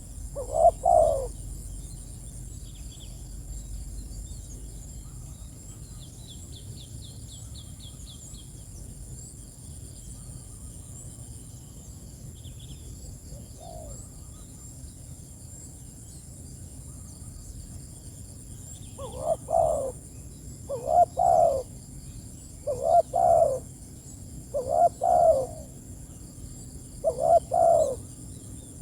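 Spotted dove (tekukur) cooing: one call about a second in, then after a long pause a run of calls about every two seconds through the second half. Faint high chirps of small birds sound in the gaps.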